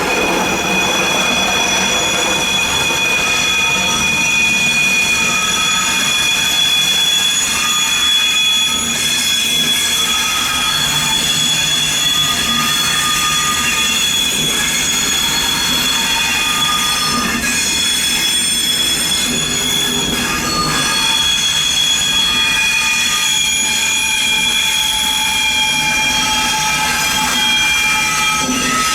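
Train wheel flanges squealing against the rails in a tight curve: several high-pitched tones held together, with a lower squeal that comes and goes every few seconds. The squeal comes from the wheel flanges rubbing on the rail as the train takes the curve.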